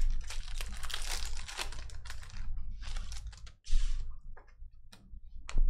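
Foil wrapper of a Donruss Optic basketball card pack crinkling and tearing as the pack is opened and the cards are slid out. The crinkling is dense for the first couple of seconds, with one louder rustle about four seconds in, then a few light clicks of cards being handled.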